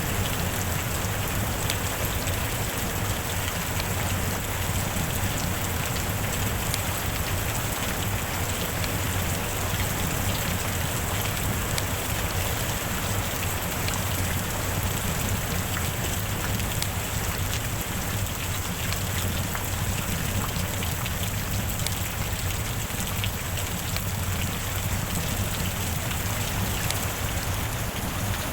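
Steady rain falling, with many individual drops ticking through an even hiss.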